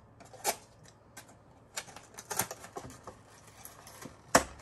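Small cardboard box being handled and opened on a desk: scattered light clicks and rustles of cardboard and paper, with one sharp knock about four seconds in.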